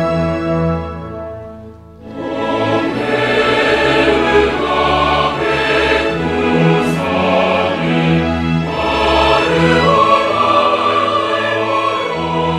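Background music: a sustained instrumental chord fades out, and about two seconds in a choir with orchestra comes in, singing sustained lines.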